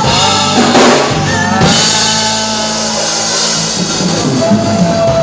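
A band playing loud music with a driving drum kit and pitched instruments.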